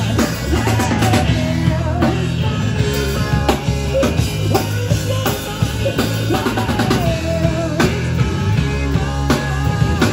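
A live rock band playing: electric guitars over a drum kit with steady kick and snare hits and a heavy low end.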